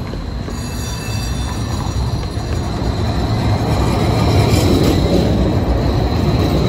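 Czech-built DC Streetcar car rolling past close by on its rails, growing louder over the first few seconds, with a steady high-pitched whine over the rumble of the wheels.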